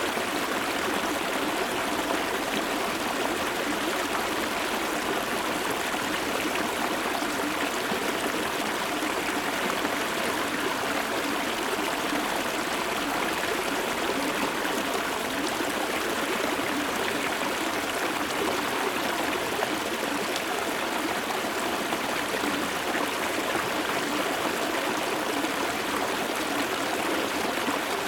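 Shallow river water flowing and babbling over stones at close range, steady and unbroken.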